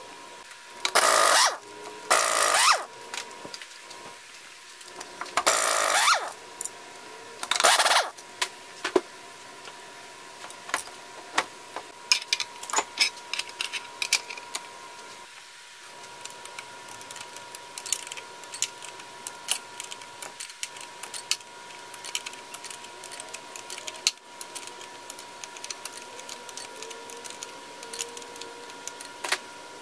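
Hand tools working on an outboard motor's metal parts during teardown: four short, loud, harsh noisy sounds in the first eight seconds, then a long run of small metal clicks and clinks.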